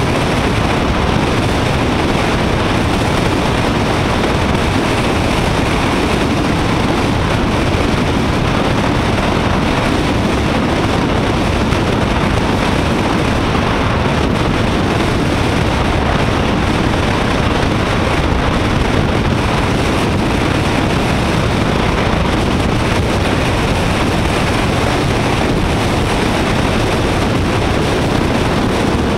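Steady wind rush over an action camera's microphone on a motorcycle at road speed, with engine and road noise mixed in underneath.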